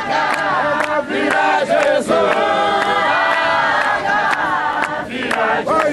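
A congregation singing a hymn together without instruments, many voices at once, with sharp strikes keeping time about two to three times a second.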